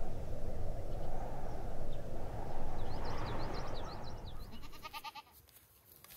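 A steady low rushing noise, then a goat gives one short, wavering bleat about four and a half seconds in.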